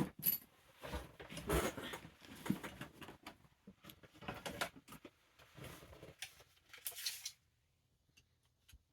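Rummaging and tool-handling noises as a tape measure is fetched and used: rustling, knocks and clicks, irregular and fairly faint, dying away about seven seconds in to a few light ticks.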